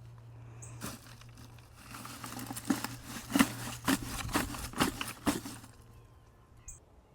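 Rustling and crinkling with a quick run of light knocks, as filler material is handled and pushed into a plastic grow pot. The handling is busiest from about two to five seconds in, with a low steady hum underneath.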